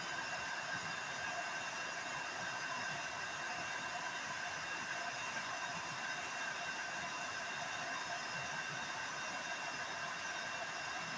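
Hair dryer running steadily, blowing upward to hold a ball aloft: a continuous rushing hiss with a faint steady whine.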